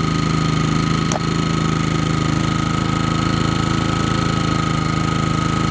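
A portable generator's engine runs steadily, with a thin steady high whine over it. A single sharp click comes about a second in.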